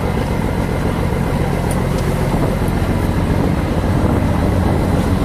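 Fishing boat's engine running steadily, a constant low drone.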